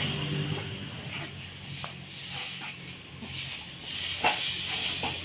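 Broom strokes scraping over the ground in short, irregular sweeps, with a few light clicks and a steady low hum underneath.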